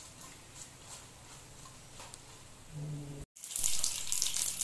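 Mustard seeds crackling in hot oil in a kadhai with dried red chillies, the tempering stage of the cooking. The crackle is faint and sparse at first, cuts out briefly about three seconds in, then comes back as a much louder, dense sizzling crackle.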